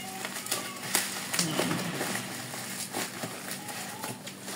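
Plastic courier wrapping crinkling and crackling in irregular bursts as a box is pulled out of it by hand.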